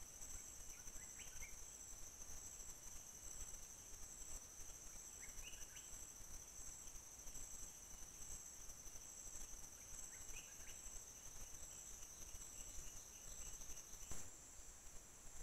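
Steady high-pitched drone of forest insects, with three short rising chirps spread through it and a single click near the end.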